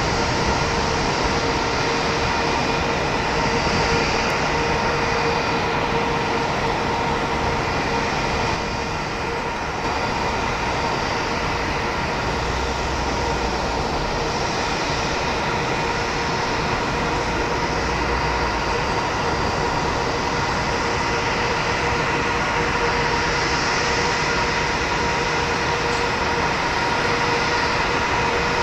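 Airbus A320-232's IAE V2500 turbofan engines at idle thrust as the airliner taxis and lines up on the runway: a steady whine over a constant rushing hiss.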